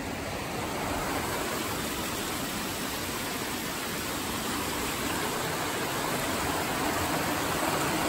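Creek water rushing and splashing over rocks in a narrow stone gorge below a waterfall, a steady rush that grows a little louder toward the end.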